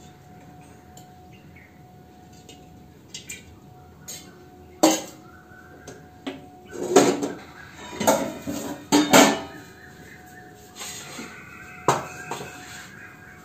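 Steel kitchen vessels, plates and spoons clanking and clinking as they are handled and set down: a series of sharp metal knocks, busiest from about five to nine seconds in, with one more near the end. A faint steady hum runs underneath.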